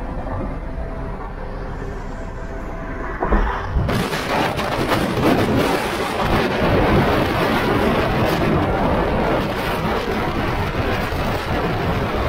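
Car cabin road and engine rumble at highway speed. About four seconds in, a sudden loud rush of wind buffets the microphone and carries on to the end.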